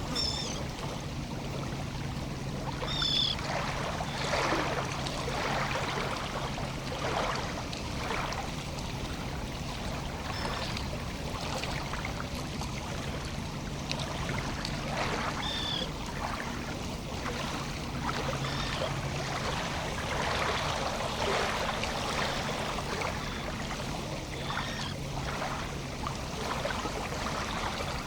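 Lake-shore ambience: small water sounds lapping and trickling irregularly, with short high bird chirps every few seconds over a steady low hum.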